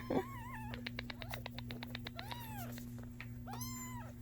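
Kitten mewing. A wavering cry comes shortly after the start, then two arched mews in the middle and near the end, with a quick run of clicks between them.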